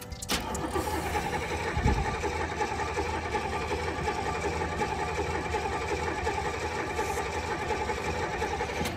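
Starter motor cranking the engine of a white box Chevrolet Caprice, a steady rapid churn for about eight and a half seconds without the engine catching, cut off suddenly near the end. A thump about two seconds in.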